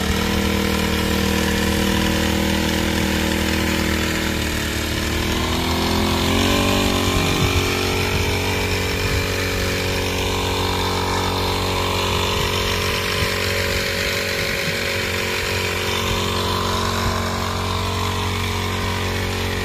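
Small four-stroke engine of a power sprayer running steadily under raised throttle. Its note rises a few seconds in as the throttle is opened further, then holds at the higher speed.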